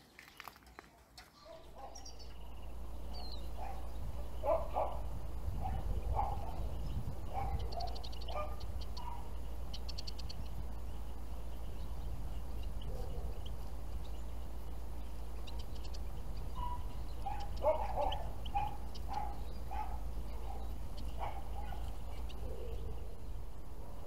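Short chirping calls of finches, including a fast high ticking series about a third of the way in, over a steady low rumble. A dog barks faintly in two short bouts.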